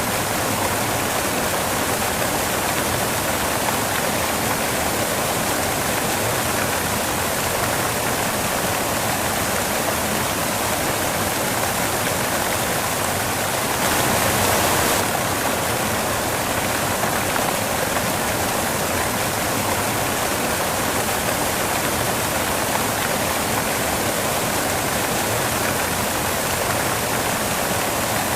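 Steady white noise: an even rushing hiss like running water, swelling slightly for about a second near the middle.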